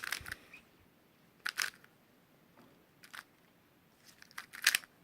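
Plastic 3x3 speedcube, a YuXin Little Magic, being turned by hand: quick clusters of clicking as its layers snap round, in four short bursts of turns, the last one the loudest.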